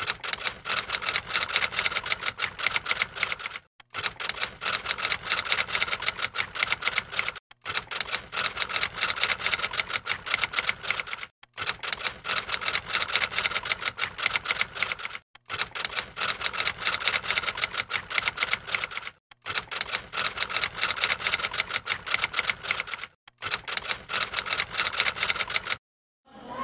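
Typewriter keys clattering in fast runs of keystrokes, each run about three and a half seconds long, broken by brief pauses.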